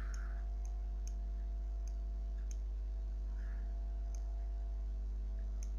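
Light computer mouse clicks, faint and irregular, about one every half second, over a steady low hum.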